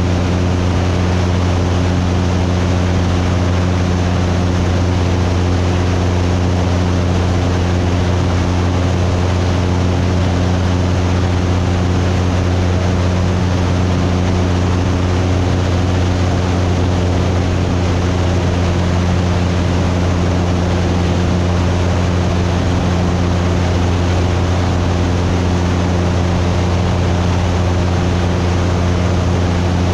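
Cessna 172's piston engine and propeller droning steadily in cruise flight: a constant deep hum with a rush of air over it, never changing pitch.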